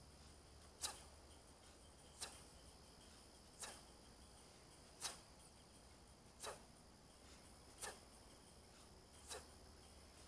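Kettlebell swings in a steady rhythm: a short, sharp swish about every second and a half, one with each swing, seven in all, over a faint steady high chirring of crickets.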